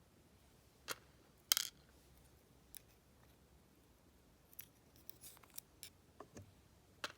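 Scattered light metallic clicks and ticks of small lock parts being handled: the plug, pins and springs of a disassembled budget deadbolt cylinder. The loudest click comes about a second and a half in, and a quick run of smaller ones comes later.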